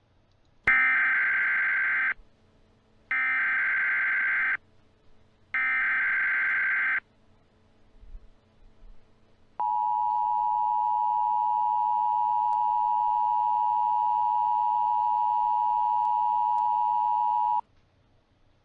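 Emergency Alert System tones from a software-made mock alert: three short bursts of SAME header data, each about a second and a half long, followed by the steady two-tone attention signal held for about eight seconds, which then cuts off suddenly.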